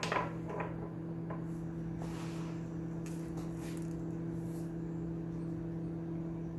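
Small plastic clicks and a brief rustle from handling a posable plastic figure and its packaging, with one sharper click at the start, over a steady low electrical hum.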